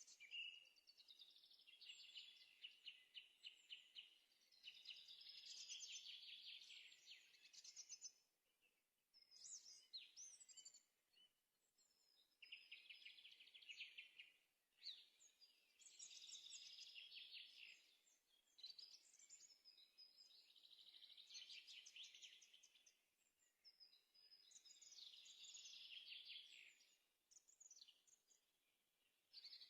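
A songbird singing faintly: a run of fast, high trilling phrases, each a second or two long, separated by short pauses.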